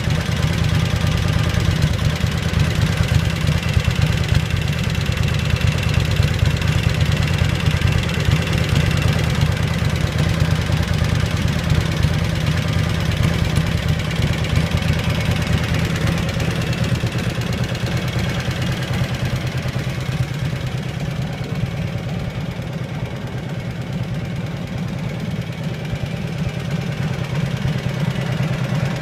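1948 Harley-Davidson Panhead's V-twin engine idling steadily, a fast, even run of exhaust pulses. It grows a little quieter for a few seconds late on.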